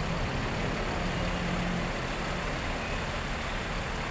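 Diesel bus engine idling with a steady low rumble.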